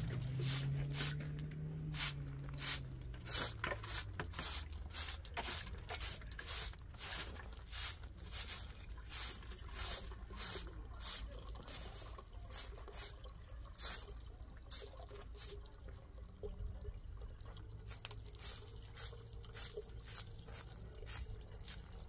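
Short straw hand broom sweeping gravel and concrete in quick, regular strokes, about one and a half a second, growing fainter after the middle. Water from a garden hose runs into a plastic bucket underneath.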